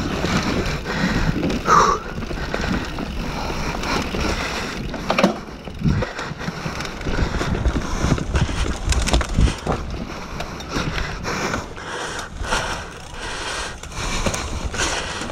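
Mountain bike ridden fast down a dirt trail: knobby tyres rolling over dirt and roots, with irregular knocks and rattles from the bike as it hits bumps.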